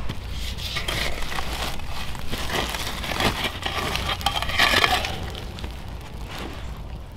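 Metal shovel scraping and crunching into a wood fire's bed of embers, scooping up hot coals, with crackly grating strokes that are loudest about four and a half seconds in.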